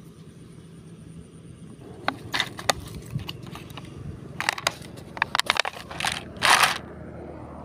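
Thin plastic water bottle crinkling and crackling in the hand as it is gripped and turned, in irregular clicks and short bursts that start about two seconds in and are loudest near the end. A low steady hum runs underneath.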